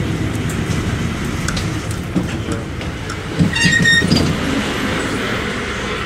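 Mercedes-Benz OM 924 LA four-cylinder inline diesel of an OF-1722M bus running steadily, with rattling from the bus. About three and a half seconds in, a brief high tone sounds as the noise briefly gets louder.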